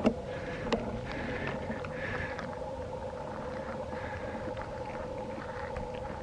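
Federal Signal Thunderbolt 1003 outdoor warning siren sounding a steady two-note chord, with a few faint clicks over it.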